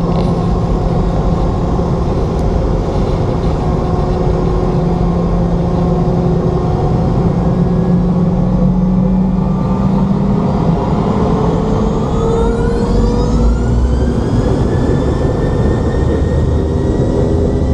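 Cabin noise of a Boeing 717-200, its two rear-mounted Rolls-Royce BR715 turbofans running with a steady drone, then a whine rising steeply from about eleven seconds in as the engines spool up and settle at a higher pitch.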